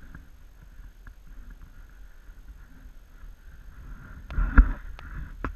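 Knocks and scrapes from a stuck dirt bike being handled and shifted against rocks, with a loud clunk and scrape about four and a half seconds in.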